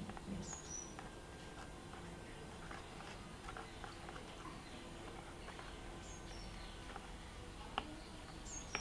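Faint scraping and clicking of a spoon handle stirring a thick baking soda and hand-wash paste inside a small model volcano cone, with one sharper tap near the end. Short high chirps of birds come a few times.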